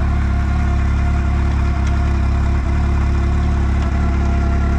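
An engine idling steadily at an even pitch, with a deep hum and no revving.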